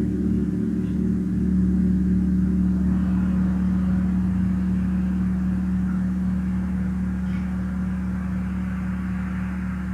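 Tam-tam gong sounding with a deep sustained hum that throbs in slow, regular pulses. A soft higher shimmer swells from about three seconds in while the whole slowly fades.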